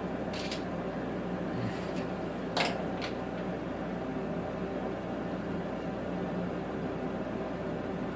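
Steady background hiss and hum of a small room, with a few light clicks in the first three seconds.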